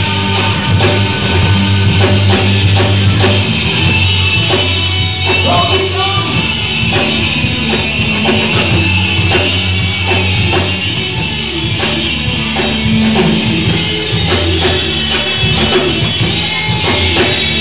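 A live rock band playing loudly: drum kit hits keeping a steady beat over electric guitar and bass guitar.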